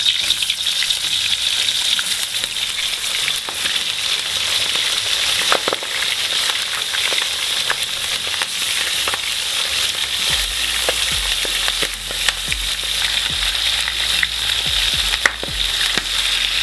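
Chicken drumsticks sizzling in hot sunflower oil in a cast-iron kazan over medium heat: a steady frying hiss with scattered sharp pops of spattering oil.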